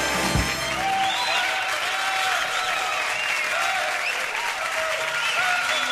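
A band's final chord stops within the first second, and an audience applauds and cheers, with scattered shouts and whoops through the clapping.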